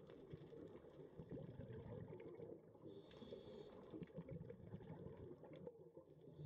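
Near silence: a faint low rumble with a few weak ticks.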